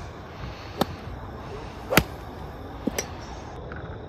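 Golf clubs striking balls on a driving range: sharp cracks about a second apart, the loudest about two seconds in and two close together near the end.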